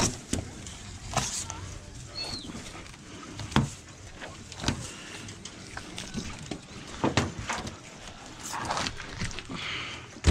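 Filleting knife cutting through a fish's rib bones and scraping on a stainless-steel table: irregular sharp crunches and clicks, spaced a second or so apart.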